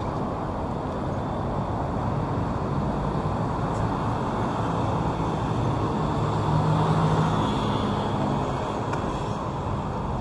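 Busy city road traffic: a steady rush of passing vehicles' engines and tyres. It swells as a nearer vehicle with a low engine hum goes by about two-thirds of the way through.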